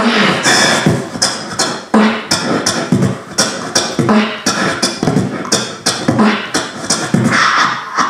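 A man beatboxing live into a handheld microphone: a steady rhythm of mouth-made drum sounds, sharp hi-hat- and snare-like strokes over low kick-like thumps.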